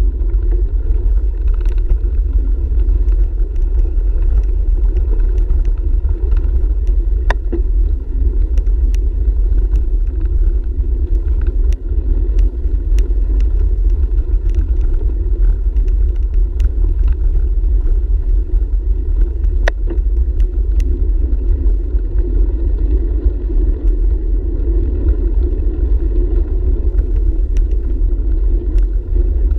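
Steady rumble of wind buffeting and tyre noise picked up by a camera on a moving bicycle's handlebar, riding over a dirt path, with scattered sharp clicks and rattles from the bike.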